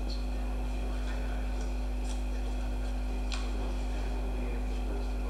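Steady low electrical hum with a few faint clicks and rustles on top.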